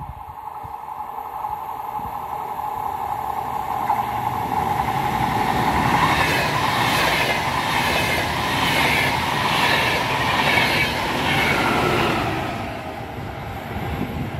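Electric InterCity train of double-deck coaches passing close at speed. A steady hum from the rails grows into a loud rush of wheels on rail, with a regular beat about once a second, then fades as the train draws away.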